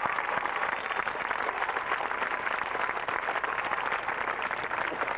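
Crowd applauding: dense, steady clapping that eases off slightly toward the end.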